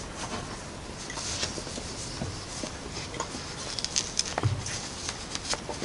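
Faint mouth noises and light clicks of a man chewing and then drinking from a cup, with a short low hum about four and a half seconds in.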